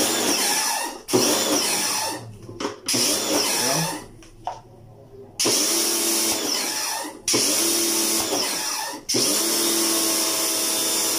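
Kawasaki HPB-302 electric pressure washer running, its motor and pump humming under the hiss of a wide fan spray hitting a concrete wall. It comes in about six spells that start and stop abruptly.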